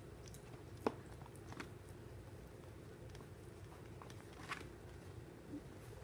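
A Chihuahua taking and chewing a bite of food: a few faint, short mouth clicks and smacks, the sharpest about a second in.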